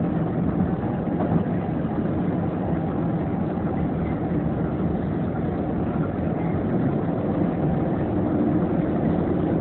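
Steady road and engine noise inside a moving car's cabin, an even low rumble with no breaks.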